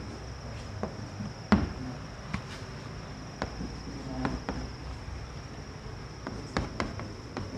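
Chalk tapping and scraping on a blackboard as writing goes on, in irregular clicks with one louder knock about a second and a half in, over a steady high-pitched hum.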